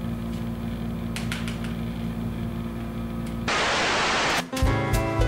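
Background music with steady low tones, then about a second of TV-static hiss three and a half seconds in, followed by music with a regular beat.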